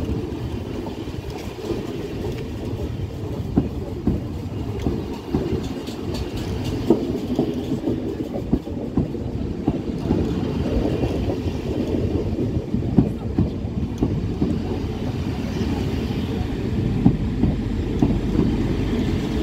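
NMBS double-deck passenger coaches rolling past along the platform: a steady wheel-on-rail rumble with irregular clicks and knocks from the wheels over the rail joints, growing slightly louder.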